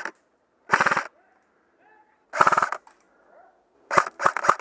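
Airsoft gun firing in short full-auto bursts: two half-second bursts of rapid shots about a second and two and a half seconds in, then a quick string of separate shots near the end.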